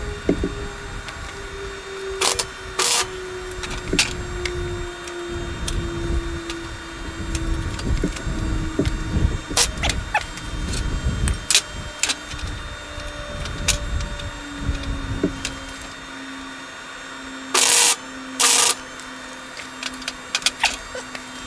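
Steel horseshoes being shifted and knocked about on a steel welding table. Near the end come two short bursts from a flux-core wire welder laying tack welds, the loudest sounds here.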